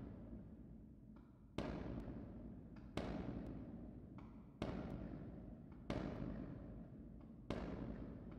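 Firecrackers going off in the distance: five sharp bangs, roughly one every one and a half seconds, each followed by a long rumbling echo that dies away.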